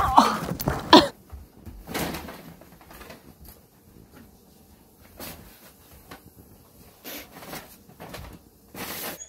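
A loud rustling scuffle ending in a sharp knock in the first second, then faint, scattered rustles and light knocks as a dog tugs clothes off a wooden chair onto carpet.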